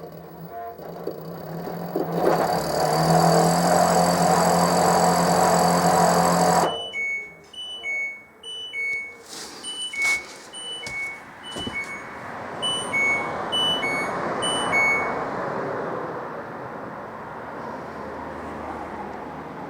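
LG direct-drive washing machine running loud with a steady whine, cutting off abruptly about a third of the way in. Its control panel then beeps over and over in a two-pitch pattern for several seconds while a softer hum carries on.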